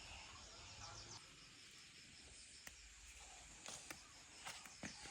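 Near silence: faint outdoor background with a soft, evenly repeating insect chirp, and a few light clicks near the end.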